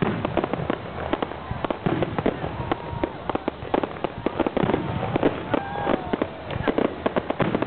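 Aerial fireworks exploding in a rapid, uneven series of sharp bangs and crackles.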